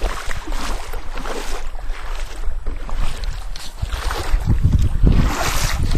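Lake water splashing and sloshing in irregular bursts, with wind gusting on the microphone, the rumble loudest from about four and a half to six seconds in.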